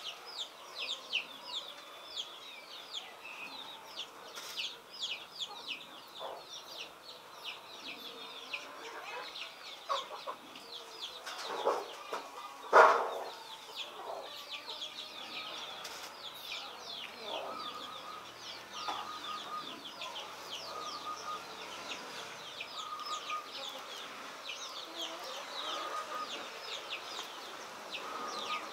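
Chickens in the background: high, rapid peeping keeps going throughout, with shorter calls in the second half and one loud brief call about 13 seconds in.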